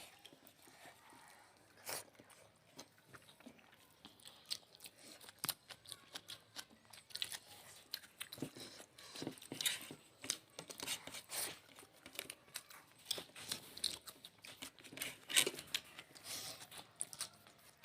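Close-up eating sounds: chewing, biting and crunching as rice, curry and salad are eaten, heard as an irregular run of small wet clicks with a few louder bites.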